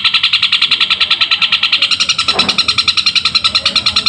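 Long-tailed shrike (cendet) singing a fast, unbroken chatter of high notes, about ten a second, in the style that mimics sparrow chirping. A brief lower sound comes about halfway through.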